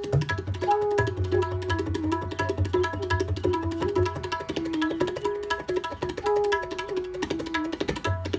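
North Indian classical raga played live. A bansuri bamboo flute plays a melody in short recurring phrases over fast tabla strokes, with the low resonant tone of the bayan drum underneath, and a tanpura drone behind.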